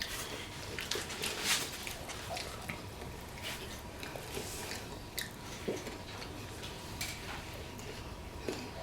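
People chewing and biting food, with scattered small clicks and mouth sounds.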